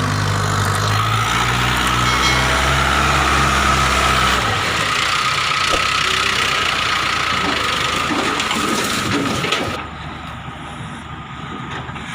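Mahindra 555 DI tractor's diesel engine running with a low, pulsing throb that cuts off about four and a half seconds in. A steadier noisy sound with a faint whine carries on and drops away sharply near the end.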